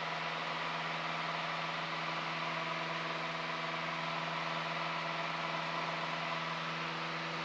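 Piper Cherokee's single piston engine and propeller running at climb power just after takeoff, heard inside the cabin as a steady, even drone.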